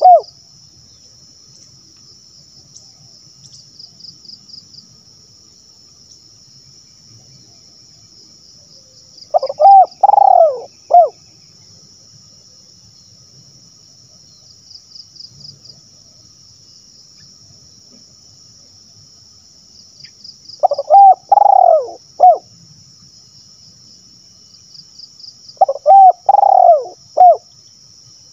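Spotted dove (tekukur) cooing: three phrases, each a quick run of three or four loud coos, the first about ten seconds in and the other two close together near the end, with soft lead-in notes before each. A steady high insect trill with a regular pulse runs underneath.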